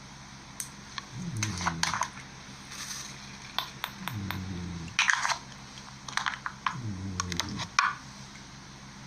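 Slime being squeezed and pressed, with clusters of small crackling pops and squelches that come again every two to three seconds. Under each cluster there is a short low hum.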